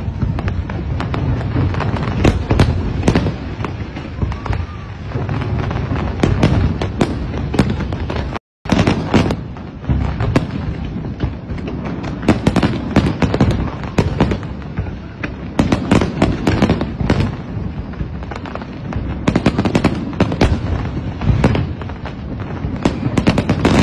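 Aerial fireworks going off in a dense barrage: many overlapping bangs and pops, one after another with no pause. The sound cuts out for an instant about eight seconds in.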